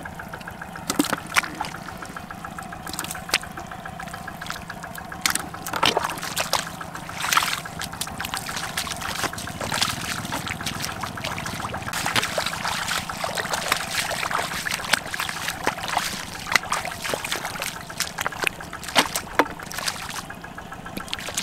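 Wet mud and muddy water squelching and splashing as bare feet wade through a flooded field and hands dig in the slurry, in irregular sloshes and slaps. A steady low hum runs underneath.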